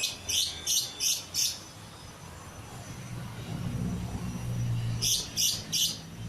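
Lovebird chirping in short, shrill bursts: a run of five at about three a second, then three more near the end. A low hum rises and fades between the two runs.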